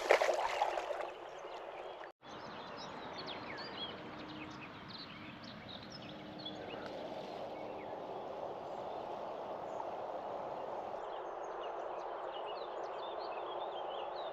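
Steady rush of river water with small birds chirping throughout. A loud clattering burst comes in the first second.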